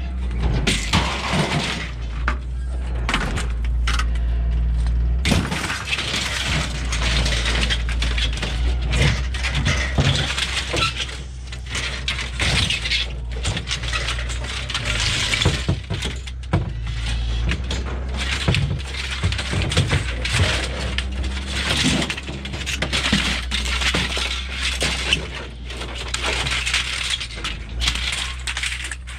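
Aluminum window and door frames being dragged off a truck bed and thrown onto the ground, clattering and crashing again and again, over a steady low hum.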